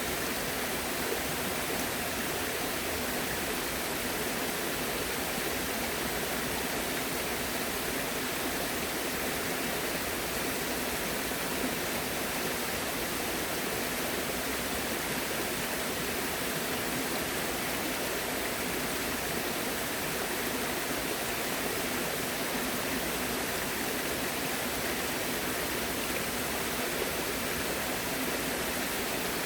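Steady rush of flowing water, an even unbroken sound with no changes.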